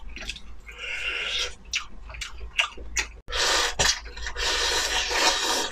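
Close-miked eating: noodles slurped in two long noisy draws, with wet smacking and chewing clicks between them.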